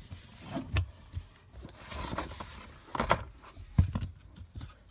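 Handling noises as the old cabin air filter is worked out of its plastic HVAC housing: a few sharp clicks and knocks, with a short stretch of rustling about two seconds in.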